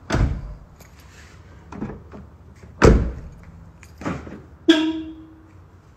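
Car door of a 2012 VW Polo sedan being worked: several clunks, the loudest about three seconds in, one of them followed by a brief ringing tone.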